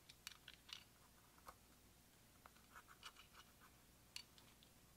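Faint, irregular scratching of a plastic spatula scraping and crushing pressed eyeshadow powder in a metal compact, in short strokes with small clicks, busiest about half a second in and again around three and four seconds.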